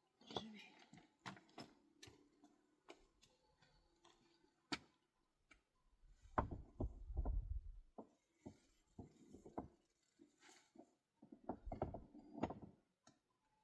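Irregular light clicks and knocks, with clusters of low thumps about six to seven seconds in and again near twelve seconds.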